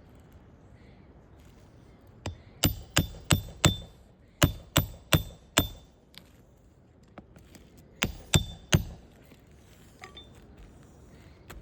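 Hammer blows with a bright metallic ring, driving roofing nails during a shingle repair: a run of five, then four, then three strikes, about three a second.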